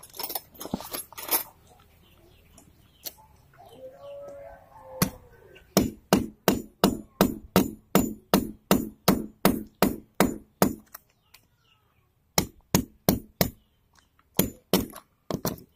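A hammer striking repeatedly, about three blows a second in a long run, then two shorter runs after a pause.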